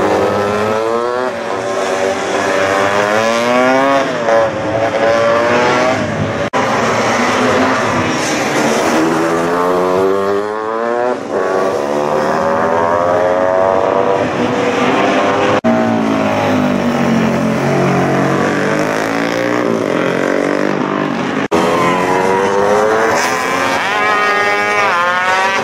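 Classic racing motorcycles at speed on a street circuit, engines revving hard and falling back through gear changes as the bikes pass close by, one after another. The sound breaks off sharply a few times.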